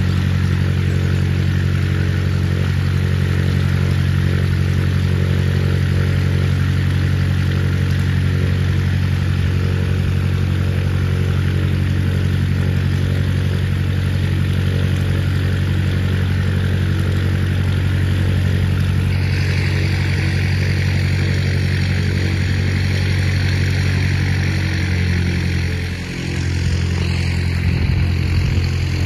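An engine running steadily at idle, a low, even drone that holds its pitch.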